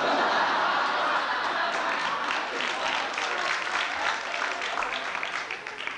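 Audience applauding, breaking out suddenly and dying away near the end.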